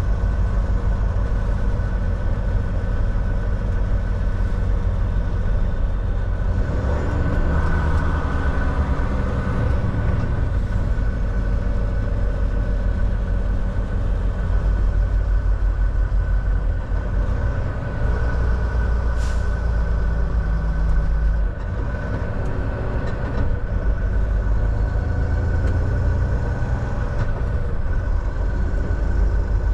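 Volvo semi truck's diesel engine and road noise heard from inside the cab while driving: a steady low rumble with a steady whine above it. The sound thickens for a few seconds about 7 seconds in and dips briefly about 21 seconds in.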